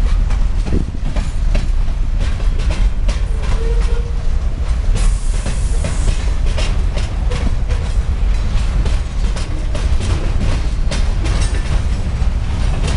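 A CSX freight train's cars rolling past close by: a steady low rumble with irregular clicks and clacks of the wheels over the rail joints.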